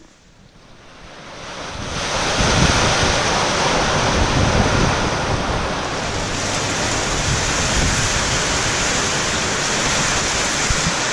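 Heavy rain pouring down in a downpour, a dense steady hiss that swells in over the first two seconds and then holds level.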